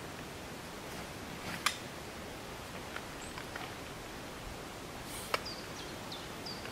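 Sharp clicks and knocks of a tripod being extended and a large-format bellows camera being mounted on it, the loudest click a little under two seconds in, over a steady outdoor hiss. A few short high chirps come near the end.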